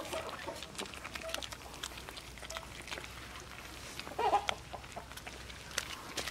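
Puppies eating rice off a plate: many quick wet chewing and smacking clicks. A short animal call a little past four seconds in is the loudest sound.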